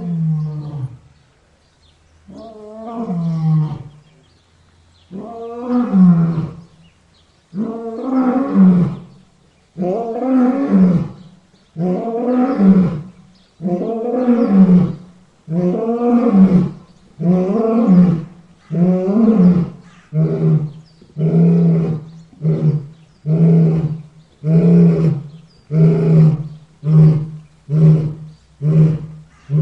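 Lion roaring in a long bout: drawn-out deep roars two to three seconds apart at first, then shorter, quicker roars that come about once a second by the end.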